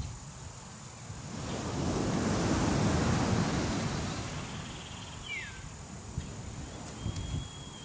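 Sea surf washing in a slow swell that builds and fades over a few seconds, with wind rumbling on the microphone.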